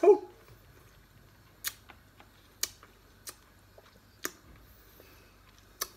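Someone eating sour tamarind: a brief vocal sound right at the start, then five or so sharp clicks spaced irregularly about a second apart.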